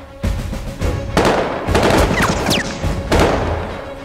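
War-film battle sound effects of gunshots and explosions over dramatic film music. There is a heavy bang just after the start and more about a second in. Then comes a stretch of dense crackling noise with a few whistling, falling tones, and a last bang near the end.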